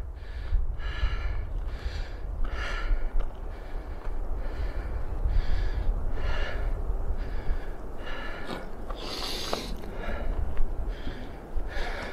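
A person breathing hard while climbing a steep trail, in a steady rhythm of about one breath a second. A steady low rumble of wind on the microphone runs underneath.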